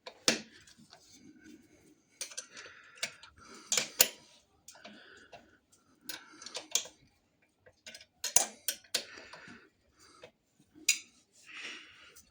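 Irregular metallic clicks, clinks and knocks of hand tools and brake caliper parts being handled during a motorcycle rear brake pad change, with brief scraping between them; the sharpest knocks come about four seconds in and again about eight seconds in.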